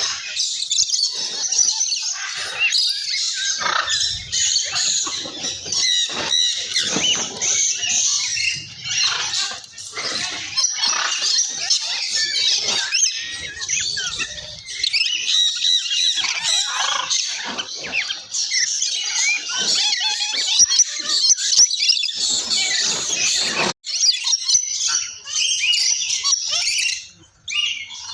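Parrots chattering and squawking, many high chirps and calls overlapping without pause, broken by a momentary gap near the end.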